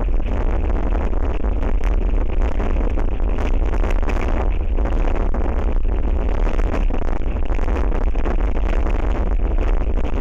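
Strong wind blowing across and buffeting an outdoor wildlife-camera microphone: a steady, loud rumble with no let-up.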